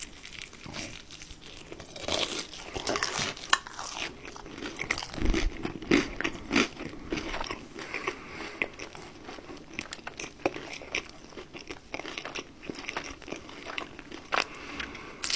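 Close-up biting and chewing of a KFC Double Down's breaded fried chicken and melted cheese, the crispy coating crunching with many sharp, irregular crackles.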